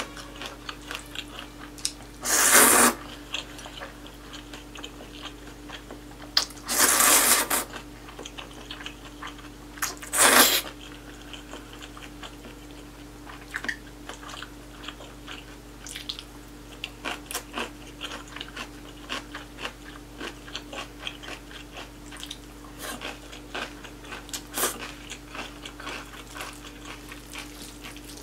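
Close-miked eating of spicy cold noodles: three loud slurps, about two, seven and ten seconds in, then steady chewing with many small crunches and smacks.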